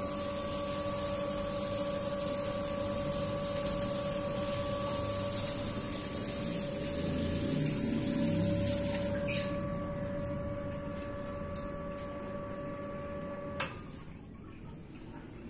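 Hitachi CT-P250F jet water pump, over 25 years old, running with a steady, smooth hum and whine. A high hiss drops out abruptly about nine seconds in, and the hum stops with a click a couple of seconds before the end.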